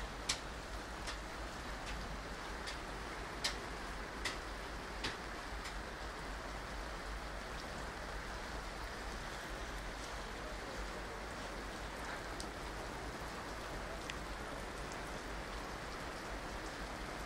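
Rain on a tent: a steady hiss with scattered drops striking, a few sharper ones in the first five seconds, over a low rumble.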